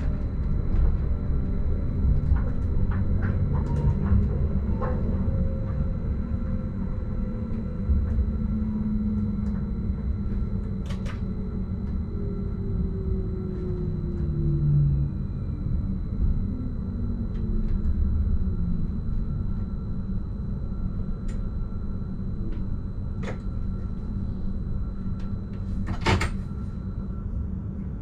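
Stadler RABe 515 electric multiple unit running, heard from inside the driver's cab: a steady low rumble of wheels on rail, with a motor whine that falls slowly in pitch. Scattered light clicks throughout, and a sharper knock about 26 seconds in.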